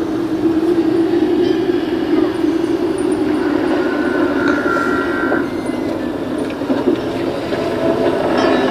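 Pirate-ship sound effects track playing from speakers: a steady low rumbling ambience, with a brief higher squeal about halfway through.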